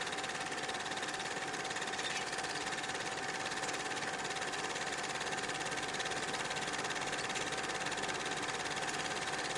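8mm film projector running: a fast, even mechanical clatter from the film advance, with a steady whine.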